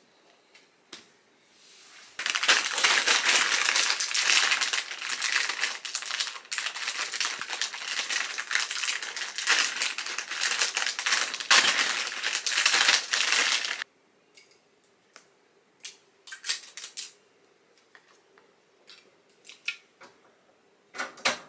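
Plastic packaging being crinkled and torn open, a long loud stretch that cuts off suddenly, followed by scattered short rustles and small clicks as the unwrapped furniture parts are handled.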